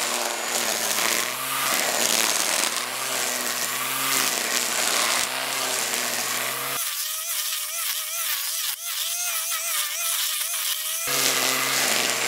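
Black & Decker corded electric string trimmer running steadily as it cuts through thick grass, its motor whine wavering slightly in pitch under the load. For about four seconds past the middle the sound turns thin, with its low end gone.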